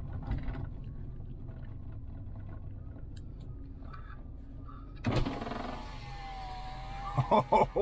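Ford F-150 pickup running with a steady low rumble, heard inside the cab. About five seconds in, a sudden louder rush of noise with a steady whine cuts in, as a window is opened.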